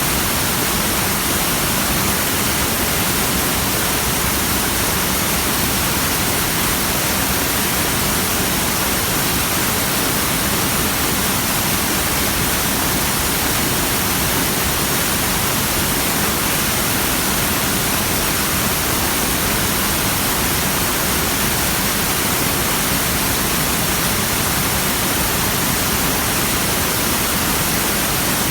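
Mountain waterfall in a narrow gorge: a loud, steady rushing of falling water with no change in level.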